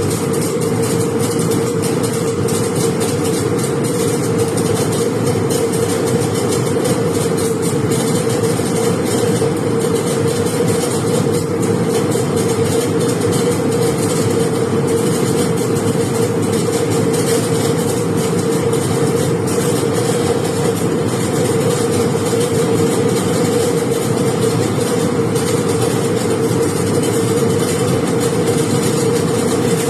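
Shielded metal arc (stick) welding with an E7018 electrode running a root pass: the arc gives a steady crackling hiss over a constant droning hum, unbroken throughout.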